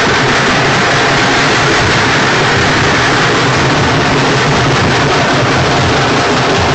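Several dhol drums beaten together in a fast, dense rhythm, so loud and close that the strokes blur into a continuous din.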